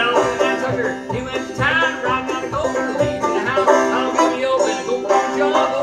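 Solo banjo playing a bluegrass-style tune, with a steady low drone under the picked and sliding notes.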